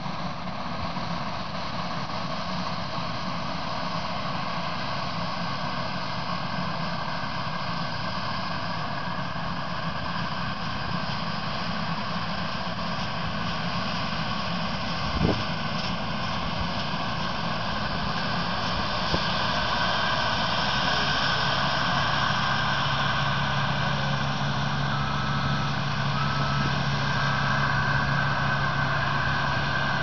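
New Holland TX65 combine harvester's engine and threshing machinery running steadily in the field. The sound grows louder, with a steadier low engine note, about two-thirds through as the machine comes closer. There is a single sharp knock about halfway.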